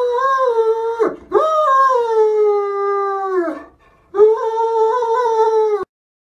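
Great Dane howling in long, whining calls: one ends about a second in, the next and longest slowly falls in pitch, and after a short pause a last steadier call stops abruptly.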